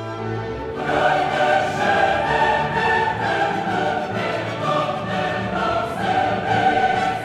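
Classical choral music: a choir singing with orchestra, swelling up over the first second and then holding full.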